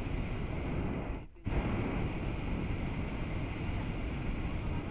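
Hot air balloon's propane burner firing, a steady loud roar that cuts out for a moment about a second in and then lights again.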